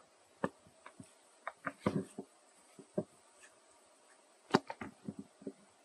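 Dry leaf litter crackling in short, irregular snaps as macaques move over it, with small clusters of crackles about two seconds in and again around four and a half seconds.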